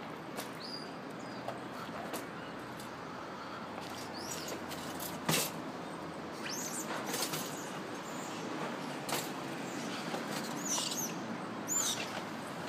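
Japanese macaques giving short, high, arching shrieks several times: around four seconds in, around seven seconds, and twice near the end. A sharp knock about five seconds in is the loudest single sound, over steady outdoor background noise.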